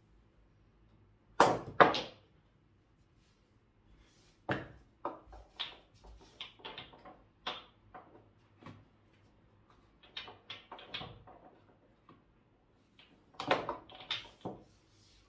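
Mini pool table balls: two sharp clacks about a second and a half in as the cue strikes the cue ball and the balls collide, then a long string of lighter ball knocks and clicks, and another cluster of louder clacks near the end.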